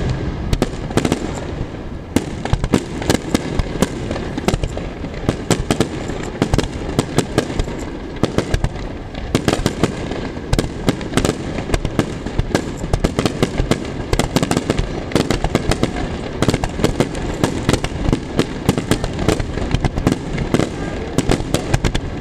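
Fireworks display firing a rapid barrage: shell after shell bursting in dense overlapping bangs and crackles, several a second without a break.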